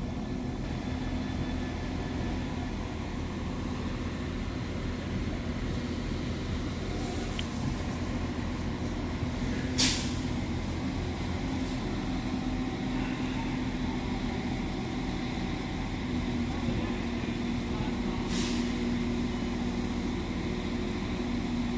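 NI Railways Class 4000 diesel multiple unit standing at the platform with its diesel engines idling, a steady drone with a constant low hum. A short sharp hiss of air comes about halfway through, with fainter hisses before and after.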